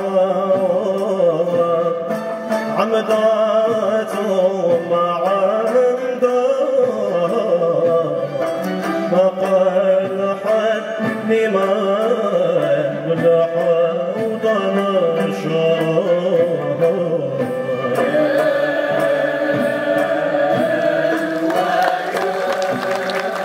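Traditional Arab string ensemble of ouds, mandolins, violins and cellos playing a song together with a male singer.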